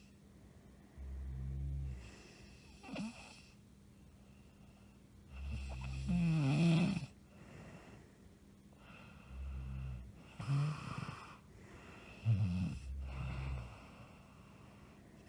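A woman snoring in her sleep: rasping snores every few seconds, the loudest about six seconds in.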